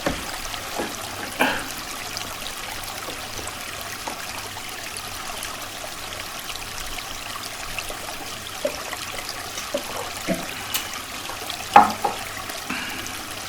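Creek water flowing and trickling steadily, with a few brief clicks over it, the loudest near the end.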